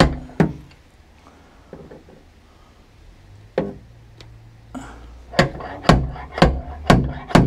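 Stud-welding dent puller at work on a car door: a couple of single clicks, then from about five seconds in a run of sharp knocks roughly twice a second over a low hum, as the slide hammer is worked to pull the dent out.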